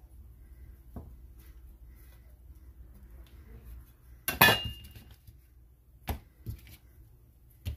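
Stainless steel bench scraper clanking against the mixing bowl about four seconds in, with a short metallic ring, followed by a few lighter knocks.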